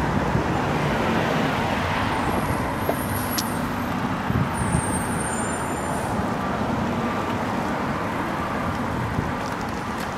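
Steady road and wind noise heard from a moving bicycle in city traffic, with cars running in the lanes alongside. A few faint high-pitched squeals come about three to six seconds in.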